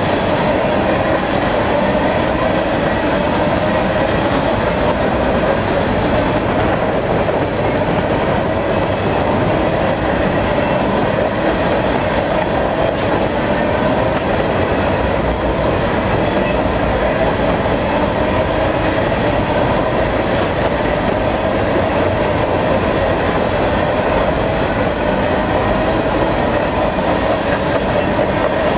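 Freight train of covered hopper cars rolling past: steady rumble and clatter of steel wheels on rail. A continuous tone wavers slightly in pitch over the rolling noise.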